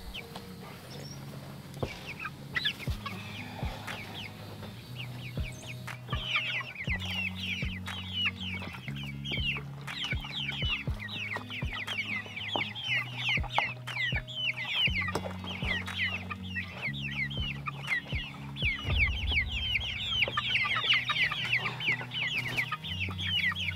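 A flock of young Cornish Cross broiler chickens peeping and cheeping: many short, high calls overlapping, thickening into a steady chorus about a quarter of the way in.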